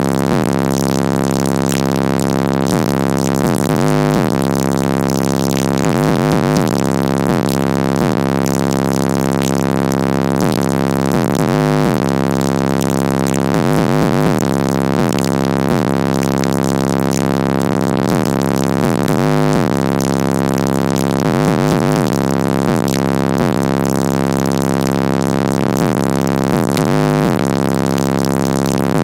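Bass-heavy music played loud through a car audio system with four Incriminator Audio Death Penalty 18-inch subwoofers, heavy sustained bass notes filling the cabin.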